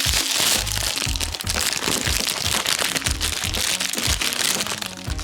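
Foil wrapper of a large Kinder Surprise chocolate egg being crinkled and peeled off by hand, a dense run of irregular crackles, over background music.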